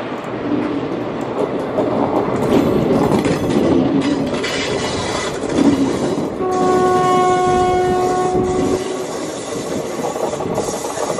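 Passenger coaches of an express train rolling past, wheels clattering over the rail joints. A train horn sounds for about two and a half seconds midway through.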